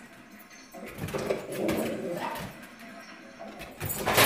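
A dog making a few short whining calls.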